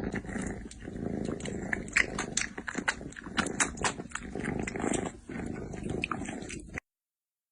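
A pet animal's sounds: a low rumbling noise with many sharp clicks, cutting off suddenly about a second before the end.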